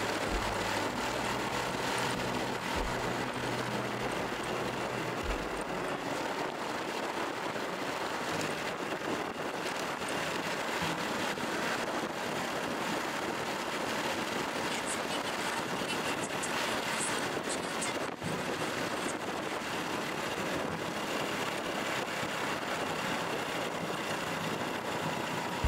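Steady wind and road rush on the microphone while riding a Honda Super Cub 110 in traffic, with the low note of its small single-cylinder engine underneath. The engine note drops away about five seconds in.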